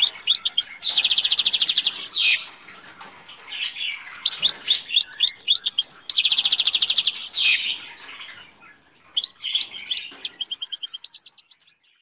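Caged European goldfinch singing in three bouts of fast twittering and rapid buzzy trills. The first two bouts end in a quick downward sweep, and the last fades out near the end.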